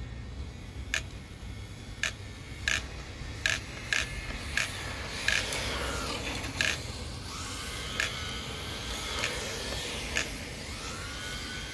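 Electric motor of an MST RMX 2.0 RC drift car whining, rising and falling in pitch with the throttle from about halfway through, along with a dozen or so sharp clicks at irregular intervals.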